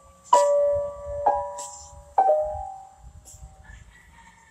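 Piano: three single notes struck about a second apart, each left to ring and fade, stepping down in pitch.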